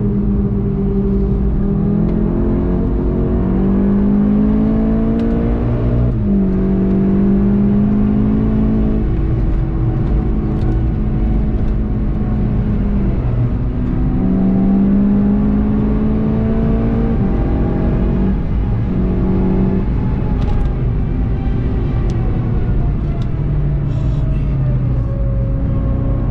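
Volkswagen Golf 7.5 GTI TCR's turbocharged 2.0-litre four-cylinder heard from inside the cabin while driven hard. It climbs in pitch through the gears and drops sharply at each upshift, several times over. In the last few seconds the note falls more slowly as the car slows.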